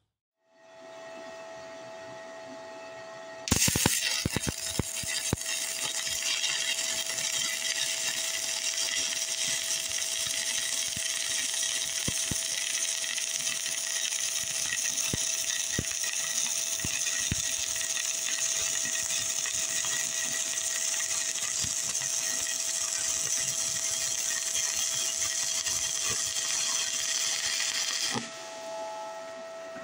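Stick welding arc on steel from the ArcCaptain TIG 200 running a 6013 electrode, DC electrode positive. The arc strikes about three and a half seconds in with a burst of crackles and pops, settles into a steady crackling hiss for about twenty-four seconds, and cuts off abruptly near the end. A steady tone runs underneath before and after the arc.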